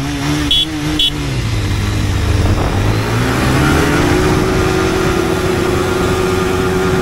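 Two short horn beeps in the first second, the start signal, then single-cylinder motorcycle engines revving up as the bikes launch hard in first gear. The engine pitch rises from about three seconds in and settles into a steady high-revving note.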